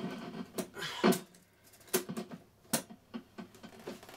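Plastic cassette keys and case of a Rank Arena A0-501 TV radio cassette player being pressed and handled with gloved hands. A run of clicks and knocks, with a short scraping clunk about a second in as the loudest, and sharp clicks near two seconds and just under three seconds.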